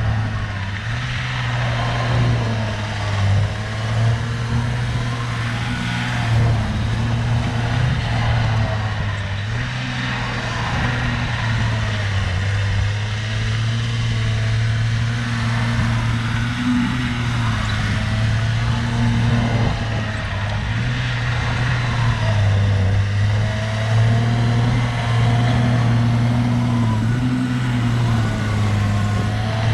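Diesel engine of a tracked earthmoving machine working on gravel, its note dropping and recovering several times as the load comes on and off, with a fainter wavering whine over it.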